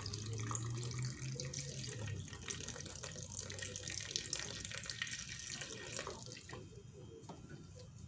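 Milk pouring in a steady stream from a carton into a glass blender jar of chocolate, splashing faintly, the pour ending about six seconds in and followed by a few light knocks.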